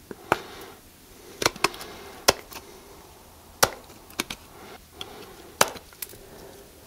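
Tin snips cutting a homemade exhaust gasket from Fel-Pro Fel-Ramic metal-cored gasket sheet: a series of sharp snips at irregular intervals, with quiet handling of the part between cuts.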